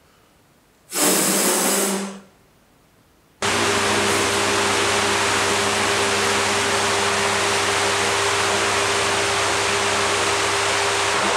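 Two metal floor fans running: a steady rush of air with a low hum underneath, starting abruptly about three and a half seconds in. A brief, roughly one-second rush of the same kind comes about a second in, between stretches of near silence.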